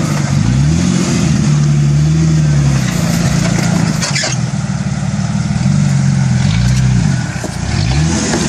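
Jeep Cherokee XJ's engine revving up and down as it crawls over boulders, its pitch rising and falling again and again. A brief sharp noise comes about four seconds in.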